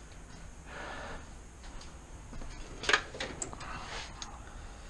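Faint handling noise of hand tools being picked up and moved about, with small clicks and one sharp metallic click about three seconds in.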